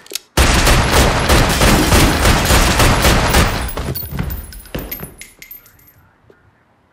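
Handgun fire in a dense volley of shots starting about half a second in. After some three seconds it thins to a few scattered shots and dies away.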